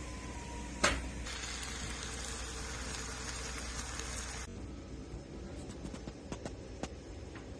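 Onion paste frying in hot oil in a pan, a dense steady sizzle that starts about a second in and cuts off suddenly near the middle. Just before it comes a single sharp knock.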